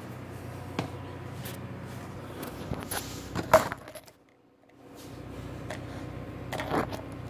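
Handling noise from a phone being moved and set down: a few sharp knocks and clicks, the loudest about three and a half seconds in, over a steady low hum. The sound drops out almost completely for about a second just after four seconds.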